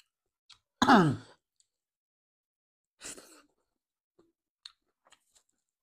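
A man's short voiced sigh, an 'aah' falling sharply in pitch, about a second in; a softer breathy exhale about two seconds later; then a few faint mouth clicks from eating.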